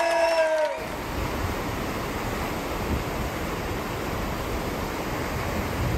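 Cheering and whoops from an audience cut off about a second in. They give way to the steady rush of a ship's wake churning the sea.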